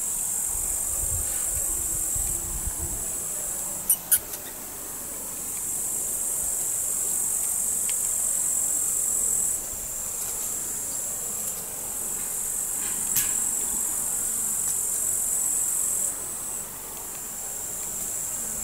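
Summer insects chirring steadily in a continuous high-pitched chorus that swells and fades in level. A few sharp clicks come about four seconds in and once more later.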